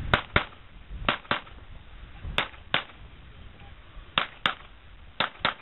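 Gunshots fired as five quick pairs, double-taps about a quarter of a second apart, with roughly a second between pairs.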